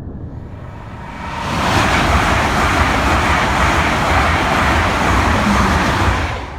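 A train passing at speed: a loud, broad rushing noise that builds about a second and a half in and holds steady, fading away near the end.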